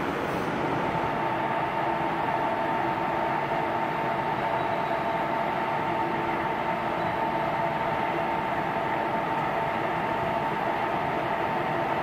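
ICE high-speed train's power car standing at the platform, its electrical equipment giving a steady whine over a constant rushing hum.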